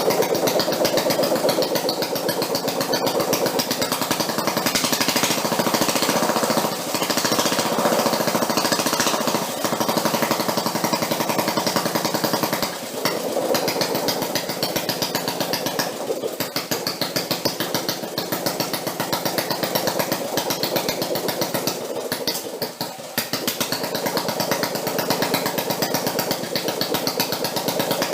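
Homemade engine built from a Quincy air compressor running, with a fast, steady beat. It dips briefly a few times, about thirteen, sixteen and twenty-two seconds in.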